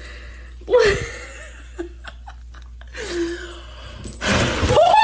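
A woman's gasps and breathy laughter over a steady low hum. In the last second comes a loud wash of splashing bathwater as foam is scooped and thrown, ending in a laughing cry.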